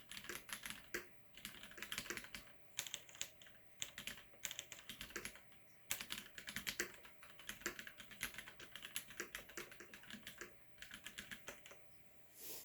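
Typing on a mechanical keyboard with Cherry MX switches: quick runs of key clicks broken by short pauses.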